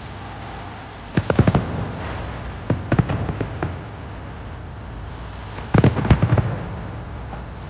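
Fireworks going off in three quick volleys of sharp bangs, about a second in, around three seconds and near six seconds, over a steady background noise.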